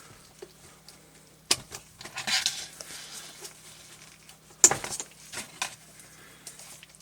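Small plastic knobs being wiggled and pulled off a radio's display unit by gloved hands: sharp plastic clicks, the loudest about one and a half and four and a half seconds in, with light handling rustle between them.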